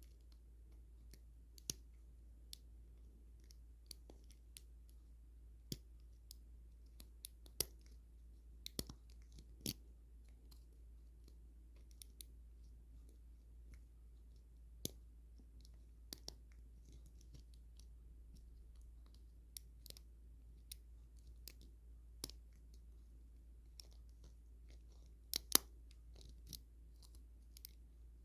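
Small sharp metallic clicks, scattered and irregular, as a short-hook pick and tension wrench work the pin stack of a six-pin Kryptonite puck padlock during single-pin picking. Near the end come a couple of louder clicks close together.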